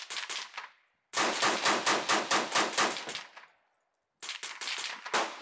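AR-15-style rifle firing rapid strings of shots, about seven a second. There is a short burst at the start, a longer string of about a dozen from about a second in, a pause, then another string near the end.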